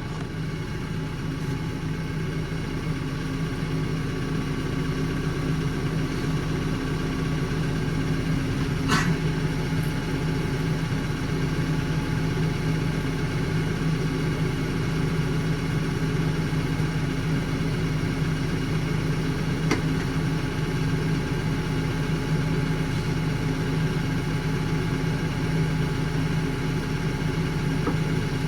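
Large engine idling steadily at a constant speed, with a short sharp click about nine seconds in and another near twenty seconds.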